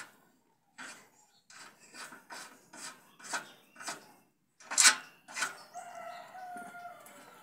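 Steel bracket scraping against the square-tube frame as it is shifted back and forth by hand, in short strokes about two a second. Near the end a rooster crows once.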